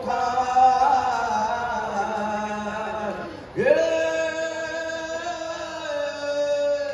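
A singer's voice in a slow, chant-like melody: a gliding phrase, then, about three and a half seconds in, one long note held steady for about three seconds.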